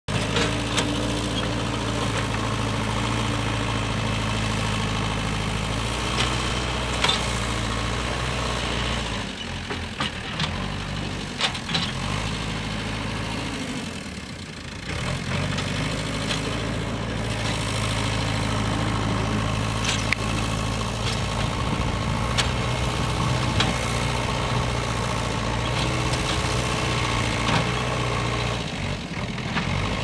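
JCB backhoe loader's diesel engine running steadily while the machine works soil. Its revs sag and pick up again a couple of times around the middle. A few sharp metallic clanks sound now and then.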